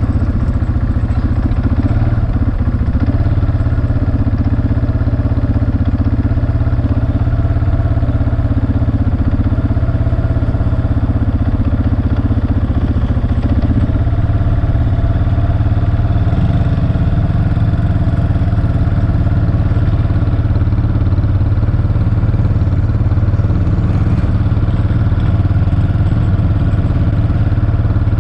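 ATV engine running steadily, heard from on board the machine as it is ridden, at a fairly even pitch that shifts slightly about halfway through.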